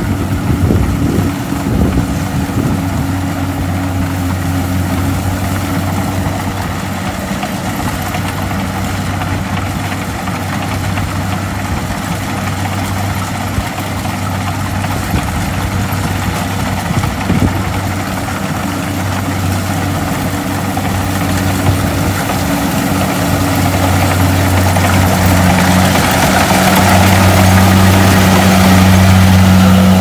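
Kubota DC-70 Plus combine harvester's diesel engine and machinery running steadily while harvesting rice, growing louder over the last few seconds as the machine draws close.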